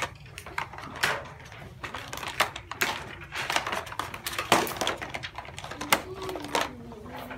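Irregular plastic clicks and rattles as a child rummages through a plastic supply tub and crayon box to get out a crayon.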